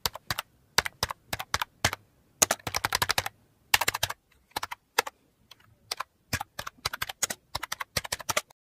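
Typing sound effect: rapid keystroke clicks in uneven runs, stopping near the end.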